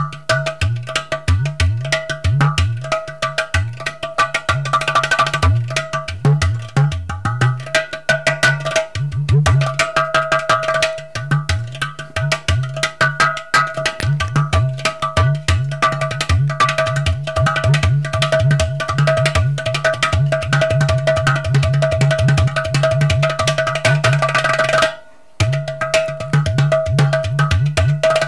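Udu, a ceramic clay-pot drum with a hole in its side, played by hand in a fast, steady rhythm. Deep bass notes that bend in pitch mix with sharp taps on the clay body. The playing stops for a moment near the end, then picks up again.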